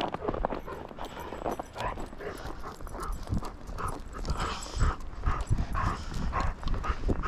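Footsteps crunching through snow at a walking pace, with wind buffeting the microphone in a steady low rumble.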